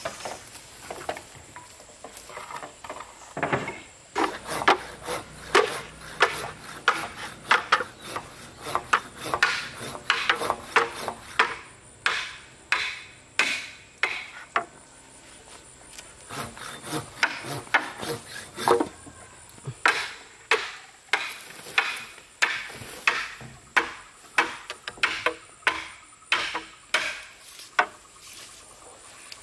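Hand tool striking timber over and over: sharp blows about one or two a second, with a short pause a little past halfway.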